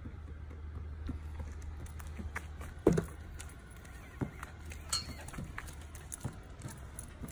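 Irregular light taps and scuffs of footsteps on pavement, a dog and a person walking, with one sharp knock about three seconds in. A low rumble stops at about the same moment.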